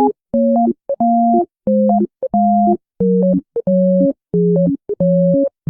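Electronic beeping tune: a run of short beeps, about two a second, each made of two pure tones sounding together, stepping gradually lower in pitch, with quick little blips between them.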